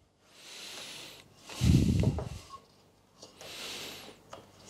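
A thin sheet of wax foundation rubbing and sliding against a wired wooden brood frame as it is fitted: two soft hissing rubs, with a low bump about two seconds in.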